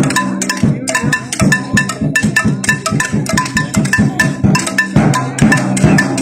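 Rapid, uneven knocking and clanging of struck percussion from the protest, with a few ringing metallic notes that keep recurring, over a steady low hum.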